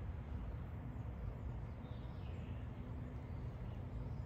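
Low, uneven rumble of wind buffeting the microphone, with a faint bird chirp about two seconds in.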